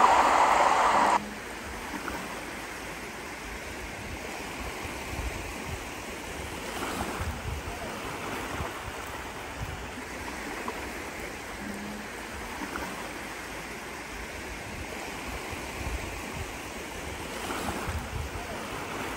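Small waves lapping and washing onto a sandy beach in a steady wash, swelling a little now and then, over a low rumble. A louder rush of noise fills about the first second, then cuts off.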